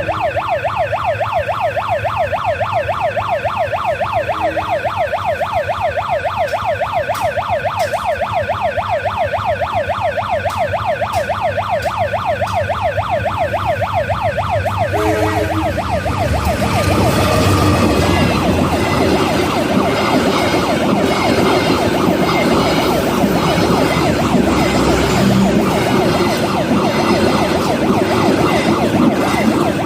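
Level-crossing warning siren warbling rapidly up and down, an ambulance-like wail. About halfway through, a passing Kamandaka passenger train's loud rumble and wheel noise rise over it and carry on to the end, with the siren still going underneath.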